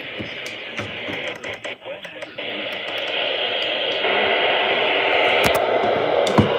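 Radio receiver static on the NOAA Weather Radio band, picked up on a software-defined radio: a steady hiss with a few short dropouts a little before two seconds in. It gets louder in steps about two and a half and four seconds in.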